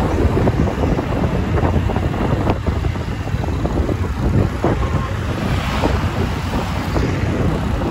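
Heavy wind buffeting the microphone of a moving motorbike, with the bike's engine running underneath.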